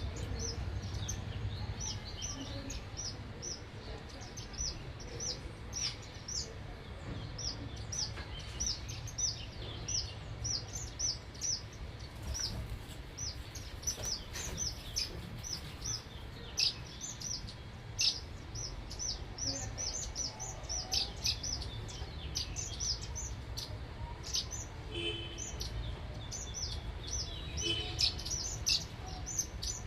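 Small birds chirping at a feeder: a continuous run of short, high chirps, several a second, over a steady low background rumble.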